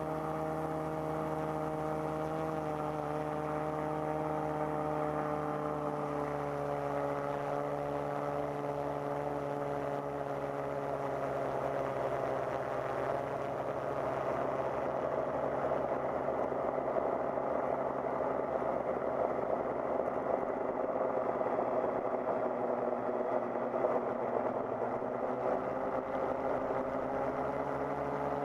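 Electric motors and propellers of an FPV quadcopter, recorded by its onboard GoPro, whining steadily in several stacked tones whose pitch slowly slides down and back up with the throttle. The sound turns rougher and a little louder in the second half.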